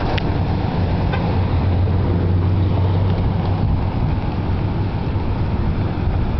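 Steady low rumble of a running motor, with a few faint ticks.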